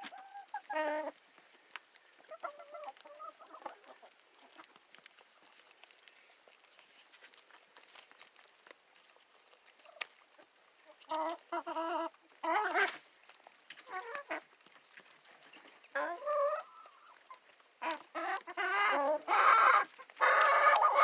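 Hens clucking and calling, a few scattered calls at first, then louder and more frequent from about halfway, busiest near the end.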